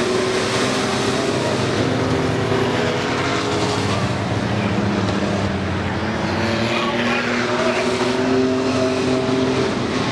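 Engines of a pack of compact pickup race trucks running hard together at once, their pitches rising and falling as they race. About two-thirds of the way through, one truck passes close with a falling sweep in pitch.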